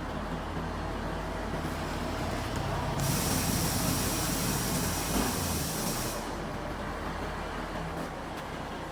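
A steady low machine hum, with a loud hiss that starts about three seconds in and stops abruptly about three seconds later.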